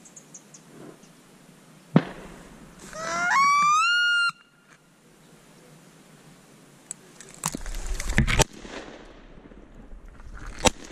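A sharp knock, then a single loud honk, about a second and a half long, that climbs in pitch. A few seconds later comes a quick flurry of shotgun shots, with another shot near the end.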